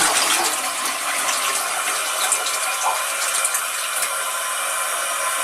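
Toilet flushing: a steady hiss of rushing water.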